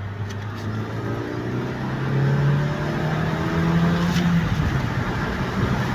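Opel Vectra C's engine heard from inside the cabin as the car accelerates: its hum climbs in pitch for a couple of seconds, then falls back about four and a half seconds in, under steady road noise.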